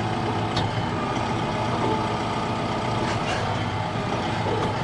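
Compact tractor's diesel engine running steadily at an even pitch while its hydraulics swing the embankment flail mower out, with a couple of faint clicks.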